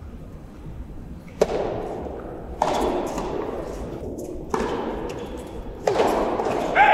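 Soft tennis rackets striking the rubber ball in a rally: four sharp hits, each ringing out with a long echo in a large indoor hall.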